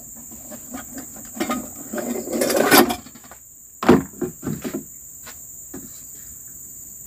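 Steady high-pitched insect chorus, with a series of sharp knocks and a louder stretch of scraping and rustling handling sounds, the strongest knock about four seconds in.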